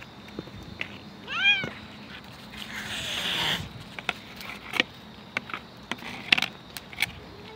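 A cat meows once, a short call that rises and falls in pitch about a second and a half in. It is followed by about a second of harsh rasping noise, then scattered small clicks and rustles.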